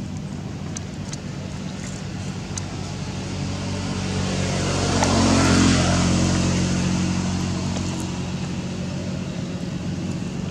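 A motor vehicle passing by: a steady engine hum that swells to its loudest about halfway through, then fades away.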